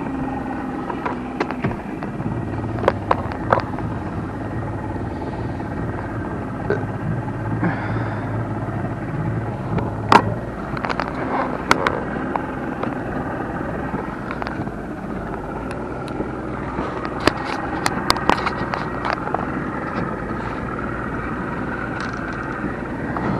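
A fishing boat's outboard motor running steadily at low trolling speed, with a low hum, and scattered clicks and knocks over it.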